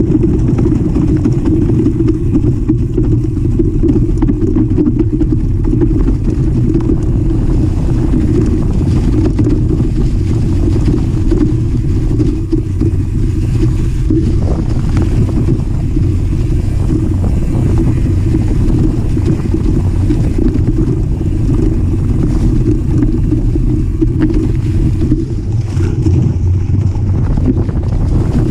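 Loud, steady low rumble of wind buffeting and trail vibration on the microphone of a GoPro Session mounted on a mountain bike riding a forest trail.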